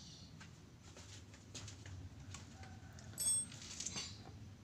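Faint scattered clicks and taps from handling a handheld jigsaw while its blade is being tightened, with a brief high-pitched ring a little over three seconds in.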